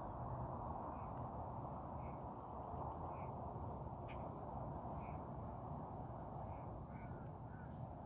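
Outdoor ambience with a steady low rushing background. Over it, birds call faintly: short calls about once a second, and a high falling whistle every three to four seconds.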